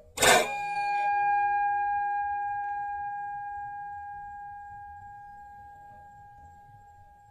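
A single bell-like metallic strike that rings on in a steady tone, fading slowly for about seven seconds, then cuts off abruptly.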